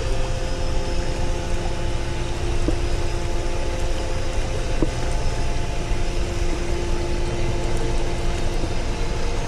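Steady rush of a fast-flowing creek, with a faint steady mechanical hum beneath it.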